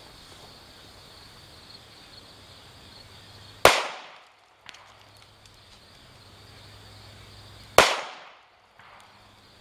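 Two .45 ACP pistol shots from a DoubleTap two-barrel pocket pistol firing 185-grain full metal jacket rounds, about four seconds apart, each a sharp crack with a short echo trailing off.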